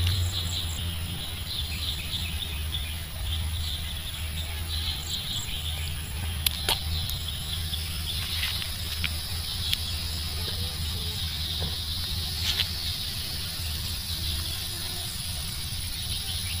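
Insects chirping in a steady high chatter over a low rumble, with a few short sharp clicks scattered through it.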